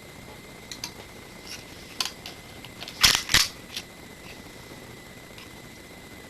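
Mechanical clicks from an airsoft Glock 17 pistol being handled and loaded: a few light clicks, then a loud pair of clacks about three seconds in, a third of a second apart, and a lighter click after.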